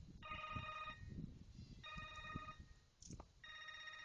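Mobile phone ringtone ringing faintly: three short, steady electronic rings, evenly spaced.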